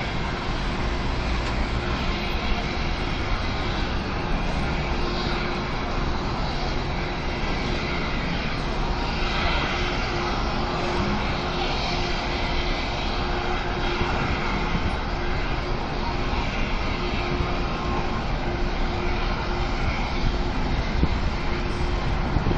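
Large propane fire at a gas tank site, burning with a steady, even rushing noise and no blasts.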